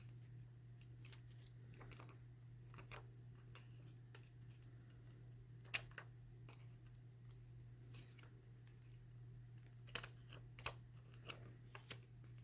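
Paper strips being folded back and forth and creased by hand: faint, scattered crinkles and taps, with a few sharper clicks near the middle and near the end, over a steady low hum.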